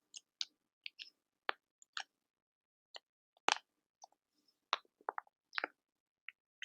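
Quiet, close-up crackles: sharp little pops and clicks at an uneven pace, about two or three a second, the loudest about halfway through.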